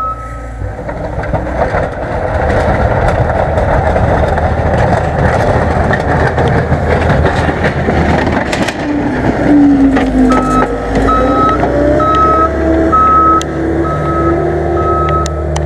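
John Deere 324G skid steer's diesel engine running hard while pushing snow, its pitch dipping and then climbing again about two-thirds of the way through. About two-thirds in, its backup alarm starts beeping about twice a second as the machine reverses.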